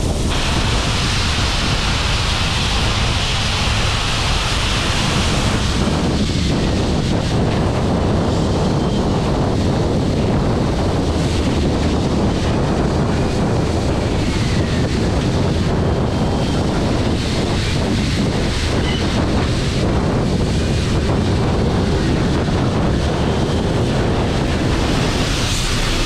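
Steady rush of wind on the microphone of a camera mounted outside the moving steam locomotive 3801, over the rumble of the train running along the track. A hiss in the upper range stops about six seconds in.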